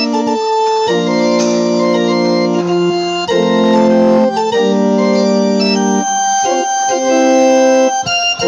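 Kawai CN43 digital piano played with an organ voice: full held chords under a moving melody, each note sustaining at an even level without fading, in a festive march-like tune.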